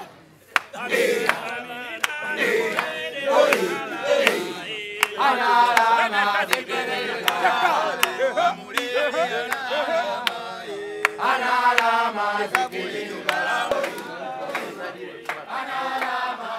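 Group of men chanting an Islamic dhikr in unison, many voices together rising and falling in pitch, with frequent sharp clicks throughout.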